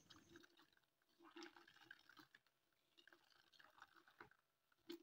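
Near silence with a few faint wet squelches: a cheesecloth bag of blended soybeans squeezed by hand, soy milk running into a plastic bowl.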